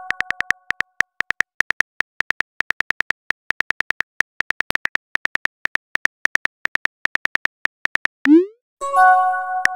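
Chat-app typing sound effect: rapid, even keyboard clicks as a message is typed. Near the end a short rising whoosh and a chime of several ringing tones mark the message being sent.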